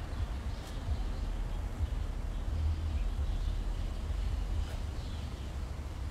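Outdoor city street ambience: a steady low rumble of traffic, with a few faint high chirps.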